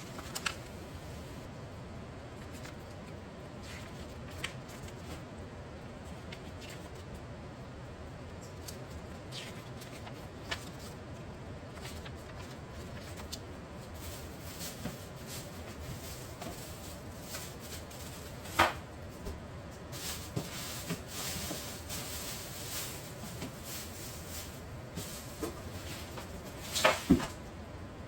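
Steady low whir of a running portable air conditioner, with scattered clicks and knocks; the loudest knocks come about two-thirds of the way through and just before the end.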